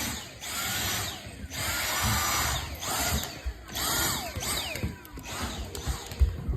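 Vacuum cleaner motor running in repeated surges about a second long, with short breaks between them, the pitch sweeping at each surge.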